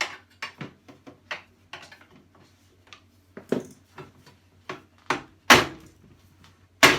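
Irregular clicks and clacks of hard parts and tools being handled while a table saw is taken apart with a screwdriver, with a few louder knocks, the loudest about five and a half seconds in, over a low steady hum.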